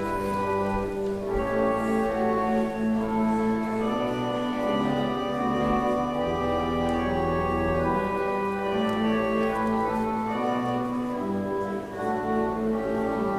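Church organ playing a slow prelude of sustained chords over a held bass line.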